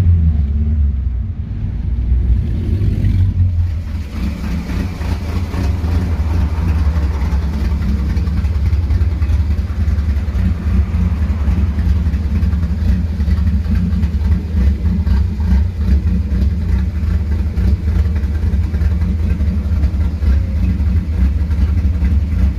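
Naturally aspirated Volkswagen AP 2.0 engine with a 288° camshaft and 4-into-1 header, revs falling back in the first second, then idling steadily with a loud rumble.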